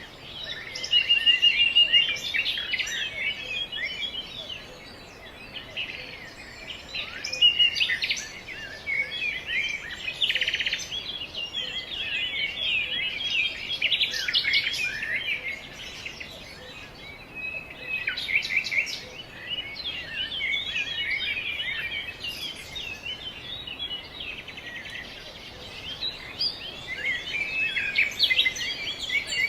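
Many small songbirds chirping and twittering at once: a dense, continuous chatter of short high calls, with a short even trill about a second in.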